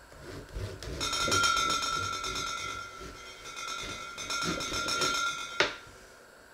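A knife sawing back and forth through a crusty loaf of bread on a wooden cutting board, a scratchy sound in two spells. It ends with a sharp knock about five and a half seconds in as the blade goes through to the board.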